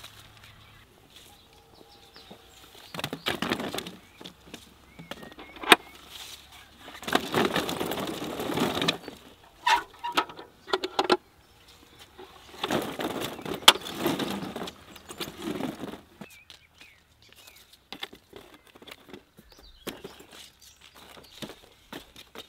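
Pepper plants rustling and picked bell peppers being handled during harvesting, in several bursts of rustling, with a sharp knock about six seconds in and another near the middle.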